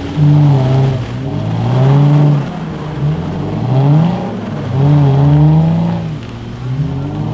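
Off-road Jeep engine revving up and dropping back in about five surges, climbing a rocky, muddy trail.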